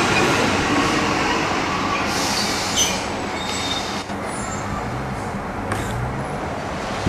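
Greater Anglia diesel multiple unit pulling away, its engine and wheel rumble slowly fading, with a few faint high squeals from the wheels about halfway through.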